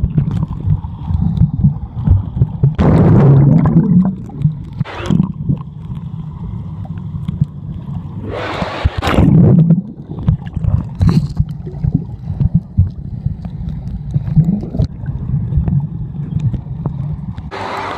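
Wave-pool water heard through a phone microphone held underwater: a muffled, low rumbling and gurgling, with louder splashy surges about three seconds in and again around nine seconds.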